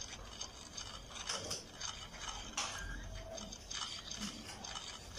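Sheets of paper rustling and scraping as they are handled, in several short strokes.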